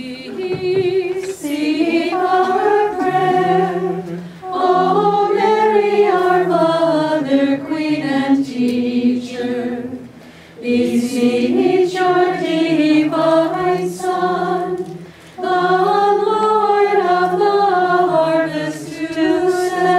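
A small group singing a hymn a cappella in unison, in long phrases with short pauses for breath about four, ten and fifteen seconds in.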